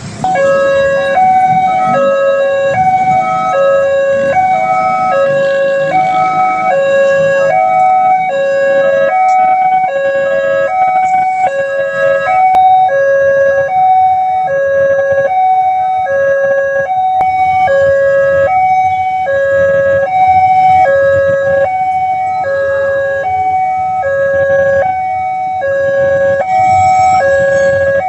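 Railway level-crossing warning siren sounding: a loud two-tone alarm switching back and forth between a low and a higher note, about once a second, cutting in suddenly at the start.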